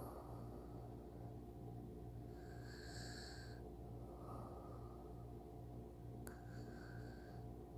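A person's soft, slow breathing and light snoring in sleep, with a breath about every four seconds, over a steady low hum.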